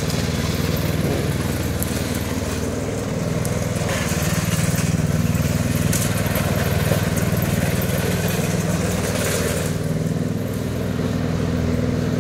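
Petrol walk-behind lawn mower engine running steadily as the mower is pushed across the lawn.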